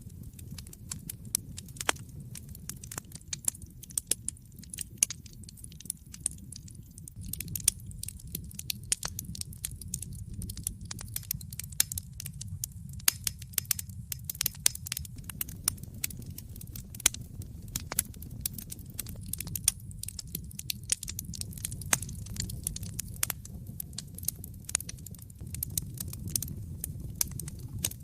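Wood fire in a fireplace crackling: irregular sharp pops and snaps over a low, steady rumble.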